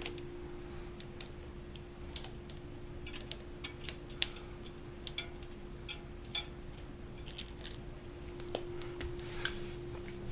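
Irregular light clicks and ticks of small tools and bicycle parts being handled while a mountain bike's rear derailleur is fitted, over a steady hum.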